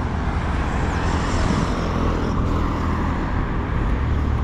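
Road traffic passing close by on a highway: a steady rumble of engines and tyre noise, swelling as a vehicle goes past between about one and three seconds in.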